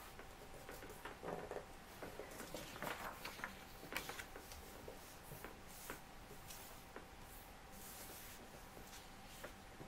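A sheet of printer paper rustling and crackling as hands fold and crease it, with the loudest crackles about a second, three and four seconds in. A faint steady tone hums underneath.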